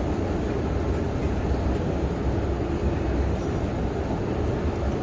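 Steady low rumble and hum of a moving escalator.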